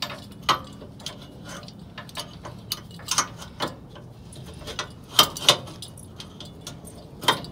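Steel trailer safety chain clinking, its hook clanking against the pickup's hitch receiver as it is hooked on: irregular metallic clicks, with a few louder clanks about five seconds in and near the end.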